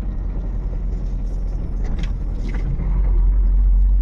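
Truck cab interior while driving slowly: the diesel engine and road noise make a steady low rumble that grows louder near the end, with a few light knocks and rattles about two seconds in.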